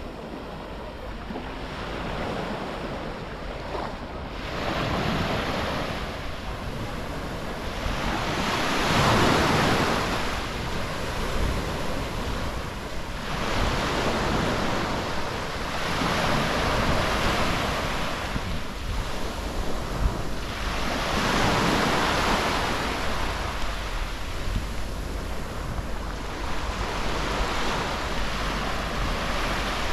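Sea waves breaking and washing up a beach, the surf swelling and fading every four seconds or so, with wind rumbling on the microphone.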